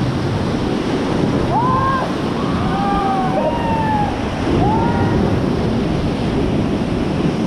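River rapids rushing around a raft, with wind buffeting the microphone. A few short shouts from the rafters rise and fall near the middle.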